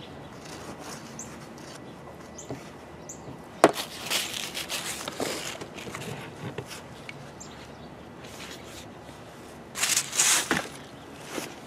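Hands working at a grease gun's hose end and a blue paper shop towel on a workbench: a sharp click of small metal parts about three and a half seconds in, then rustling and crinkling of the paper towel, with a louder bout of crinkling near the end.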